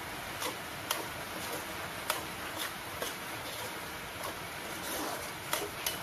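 A spoon stirring thick pineapple pickle in an aluminium pot, with short sharp clicks and scrapes of the spoon against the pot at uneven intervals over a steady hiss.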